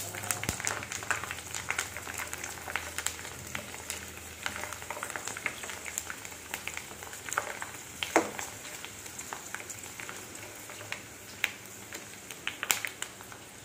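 Dried rava (semolina) papads frying in hot oil in a kadai: a steady sizzle full of small crackles as they puff up. A few sharper taps come from the metal slotted spoon turning them in the pan.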